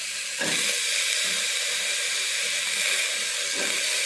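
Hot oil sizzling in a pressure cooker as diced eggplant fries with moong dal. It is a steady hiss that gets louder about half a second in, with a few soft low knocks.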